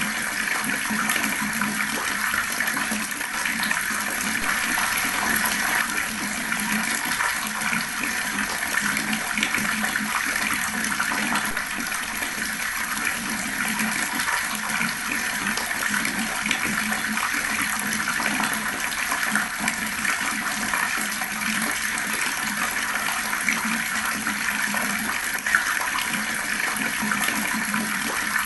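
Water flowing fast in a steady, unbroken rush.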